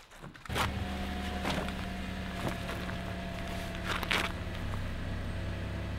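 Steady low hum of an idling car engine, with a few footsteps crunching on gravel over it.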